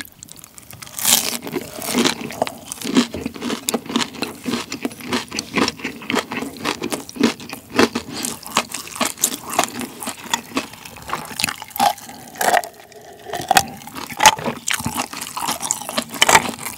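Close-miked chewing of a crispy hash brown waffle, with many small crunches and wet mouth sounds. Near the end, ice knocks in a glass of cola as it is picked up.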